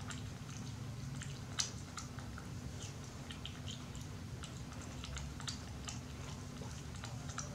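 Young macaque chewing jackfruit: irregular small wet smacking clicks, with a sharper click about a second and a half in, over a steady low hum.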